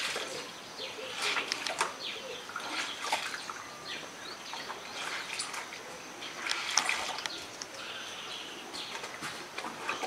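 Water splashing and sloshing in a plastic basin as clothes are washed by hand, in irregular bursts, with birds chirping.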